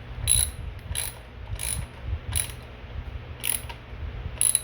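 Ratchet clicking in short back-and-forth strokes while tightening the 8 mm crank arm bolt on a bicycle bottom bracket spindle. There are about six bursts of clicks, roughly two-thirds of a second apart, with a longer pause near the middle.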